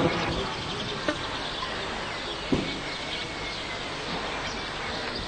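Steady background hiss with no singing, broken by two brief faint knocks, about one second and two and a half seconds in.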